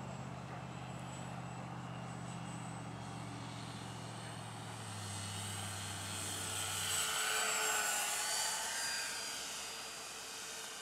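Twin-engine RC B-26 model airplane making a low pass: the high propeller whine swells to its loudest about seven to eight seconds in, then drops in pitch and fades as the plane goes by.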